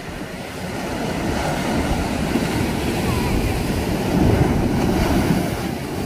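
Ocean surf breaking against a rocky shore, a steady wash that swells to its loudest about four to five seconds in as a wave crashes into the rocks.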